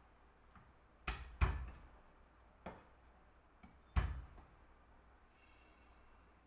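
A few sharp knocks against glass: two close together about a second in, a fainter one, then a strong one about four seconds in, as smashed pieces are dropped into a glass container of lemons.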